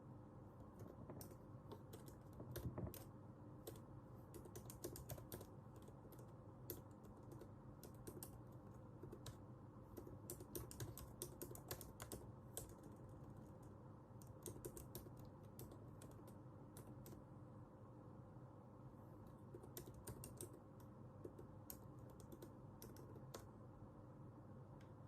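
Faint computer keyboard typing: irregular runs of quick keystrokes broken by short pauses, over a faint steady hum.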